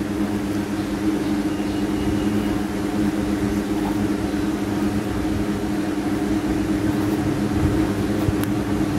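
A steady mechanical hum made of several fixed low tones, running evenly without change.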